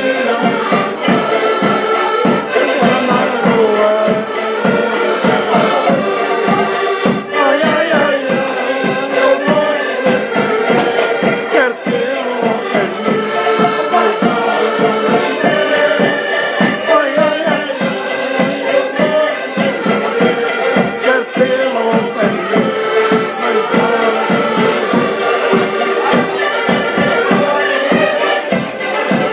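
Live Portuguese folk music: several button accordions playing together over a steady bass-drum beat, with voices singing along.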